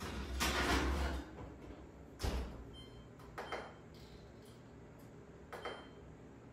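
Oven being loaded and shut: a sliding scrape, then a thump as the oven door closes about two seconds in, followed by a few short high beeps from the oven's control panel as the timer is set.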